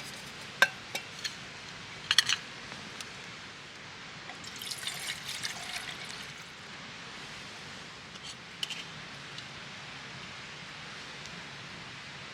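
A few sharp clicks, then liquid being poured for about a second and a half, then two more clicks, over a steady faint hiss.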